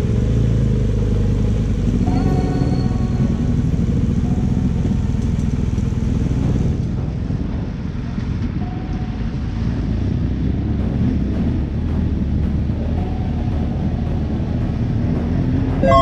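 A vehicle engine running with a steady low rumble.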